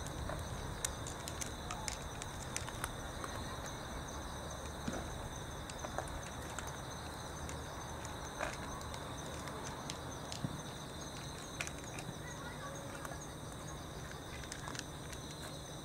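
A cat eating from a plastic tray, with small scattered clicks and crunches of chewing, over the steady high-pitched chirring of insects such as crickets.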